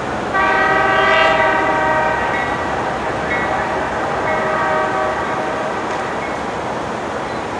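Diesel freight locomotive's air horn sounding a long chord blast from about half a second in, followed by shorter, fainter soundings, over the steady rumble of the moving train.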